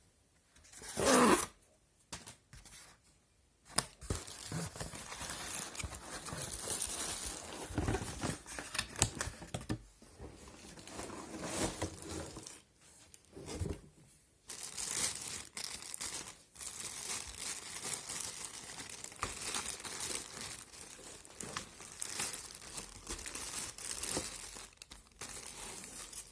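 Packaging being unwrapped by hand: a short loud rip about a second in, then irregular crinkling and rustling that pauses briefly now and then.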